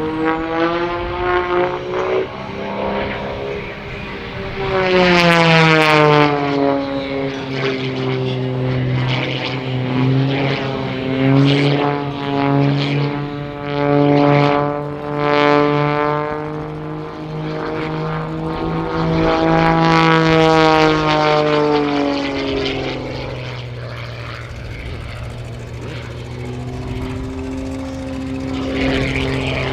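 Wolf Pitts Pro aerobatic biplane's piston engine and propeller buzzing through a display routine. The pitch swoops up and down and the sound swells and fades several times as it climbs, dives and passes overhead.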